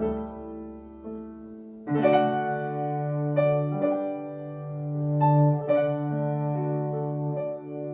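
Piano playing slow chords in a song's instrumental ending, fresh chords struck every second or so over held low notes.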